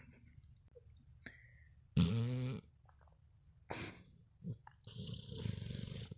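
Old dog snoring in her sleep: a loud, pitched snore about two seconds in, two short breaths after it, and a longer, noisier snore near the end.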